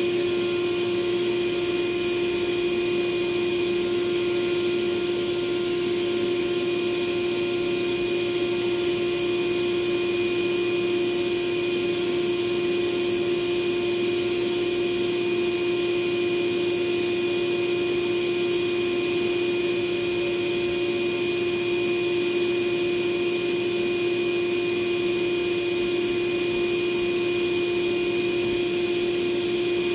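Shop vacuum motor running steadily: a constant whining hum over an even rush of air, with no change in speed.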